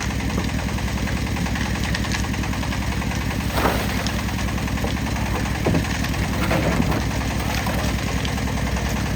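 A small engine running steadily with an even, fast pulse. A few short knocks and scrapes sound over it about a third of the way in, past halfway and again shortly after.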